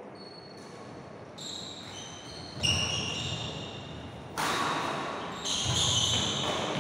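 Badminton players' court shoes squeaking and scuffing on a wooden hall floor during a rally, in several short high squeals, with sudden louder impacts of footwork and racket strokes on the shuttlecock.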